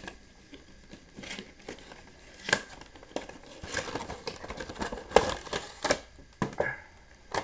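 Action figure packaging being opened by hand: the cardboard box and its clear plastic window and tray crinkle and rustle, with irregular sharp clicks and snaps, the loudest about two and a half seconds in and again between five and six and a half seconds in.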